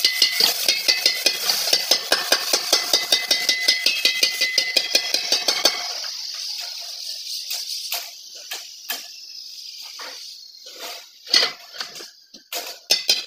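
Background music with a quick, steady percussive beat, which drops out about halfway through. In the quieter stretch a few scattered metal knocks and clinks are heard, from the steel dent-removal bar working inside the motorcycle fuel tank. The music beat returns near the end.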